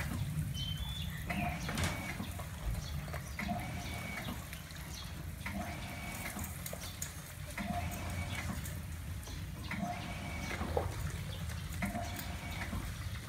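Shower head running water into a plastic basin, with hands splashing and scrubbing a dog's wet fur. A short tone repeats about every two seconds on top of the water.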